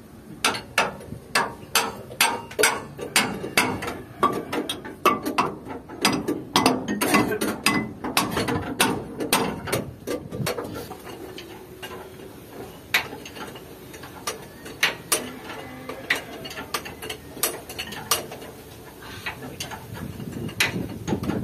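Ratchet clicking in quick, irregular runs of sharp metal ticks, busiest in the first half and sparser after about ten seconds.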